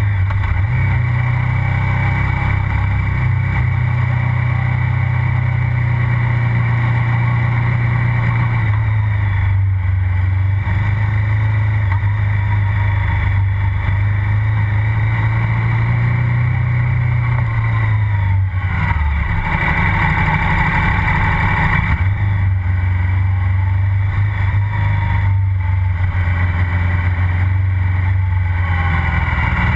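KTM 990 SMR's V-twin engine running under way, heard close to its exhaust silencer. The engine note holds steady for long stretches and steps up and down with throttle and gear changes, with a short drop and rising rev about two-thirds of the way through.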